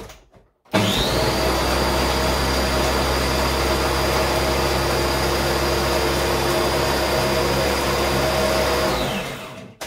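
Small countertop blender's electric motor running, blending a frozen mix of ice cream, ice and cream soda. It starts sharply about a second in with a quickly rising whine, runs steadily and loudly for about eight seconds, then winds down and stops near the end.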